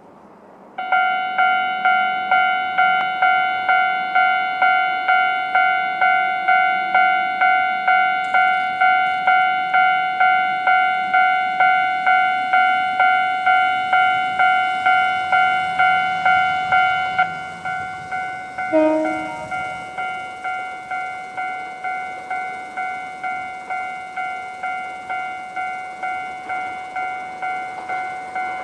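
Japanese railway level-crossing warning bell starting up and ringing in a fast, even ding-ding, about two and a half strikes a second. About seventeen seconds in it gets quieter and keeps ringing.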